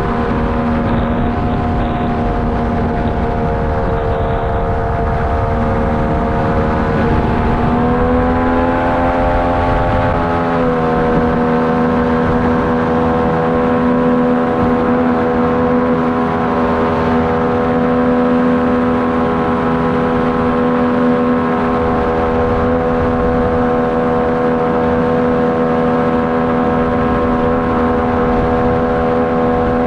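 Inflatable jetboat's engine running at speed with a steady drone. About eight seconds in, the revs climb over a couple of seconds, then hold steady at the higher pitch. Wind buffets the microphone for the first ten seconds or so.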